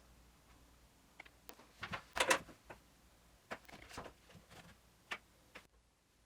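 Scattered light knocks and clicks of wood and tools being handled at a workbench, with the loudest cluster about two seconds in.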